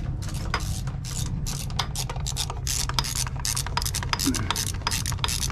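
Socket ratchet clicking in quick, even strokes, about four a second, as new bolts are run down on a well pump's housing, over a steady low hum.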